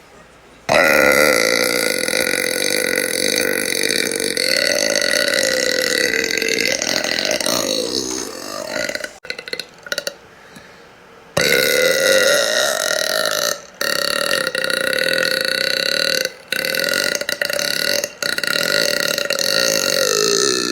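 A woman belching: two long, drawn-out belches. The first lasts about eight seconds; after a short pause the second runs on past the end, with a few brief breaks.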